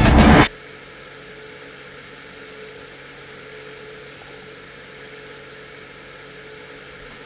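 Raccoon 2 SE robot lawn mower running: a quiet, steady electric whir with a faint hum, left alone once the music cuts off about half a second in.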